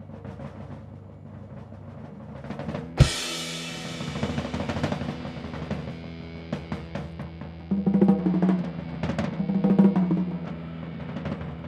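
Rock band music led by a drum kit: rapid drum rolls build to one loud crash hit about three seconds in, followed by more drumming over sustained low notes.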